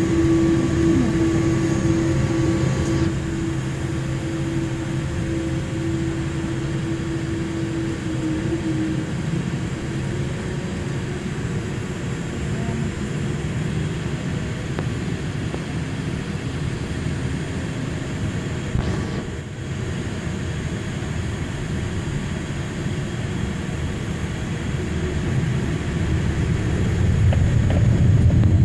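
Boeing 787 jet engines heard from inside the cabin as the airliner lines up and starts its takeoff roll: a steady engine hum with a held tone that fades out about nine seconds in, then a low rumble that grows louder near the end as the plane speeds down the runway.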